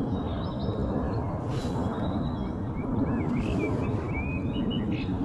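Steady low background rumble with faint, short, high chirps from birds, several of them in the second half.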